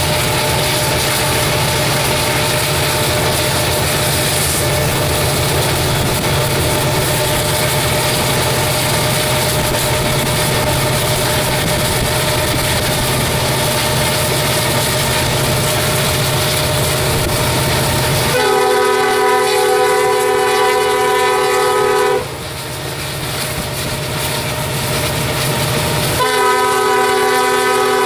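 Norfolk Southern diesel locomotive 2774 running with a double-stack container train: a steady rumble of engine and rolling wheels, heard from a car driving alongside. About two-thirds of the way through, the air horn sounds one long blast of about four seconds, then after a pause of about four seconds a second long blast begins near the end.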